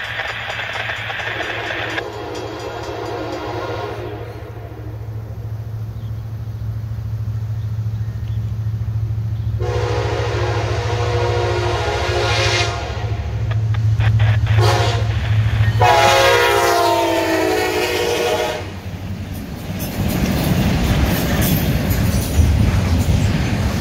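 SD60 diesel locomotives' horn blowing two long blasts, a short one and a final long one, the pattern used at a grade crossing, over the steady rumble of the approaching engines. The last blast drops in pitch as the locomotives pass. Near the end, double-stack container cars roll by with rumbling, clattering wheels.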